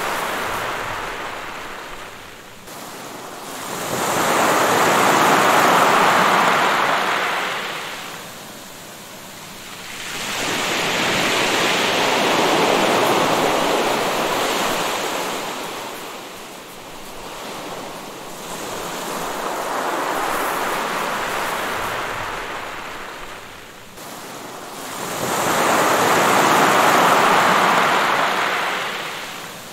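Sea surf washing onto a shore, the noise of the waves swelling and ebbing in long, slow surges about every seven seconds.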